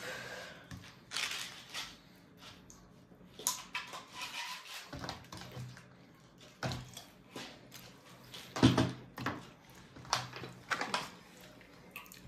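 Babies feeding themselves at breakfast: scattered small knocks and clatter with a few brief baby noises, the loudest about two-thirds of the way through.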